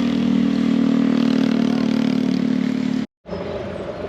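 A steady, loud engine drone from a motor vehicle. It cuts off abruptly about three seconds in, and a quieter, even background hum follows.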